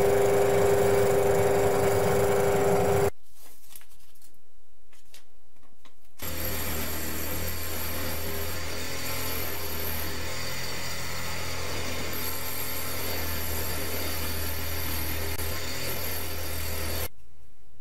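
Electric power tool cutting wood, in two stretches: a louder pitched run that cuts off about three seconds in, then, after a short pause, a steadier run that stops shortly before the end.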